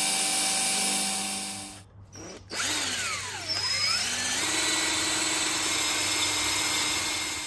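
Electric hand drill boring out a hole in a steel spindle hub. It runs steadily, stops a little under two seconds in, then restarts with its speed dipping and climbing back before running steadily again.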